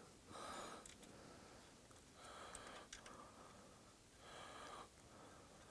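Near silence, with three faint short breaths about two seconds apart.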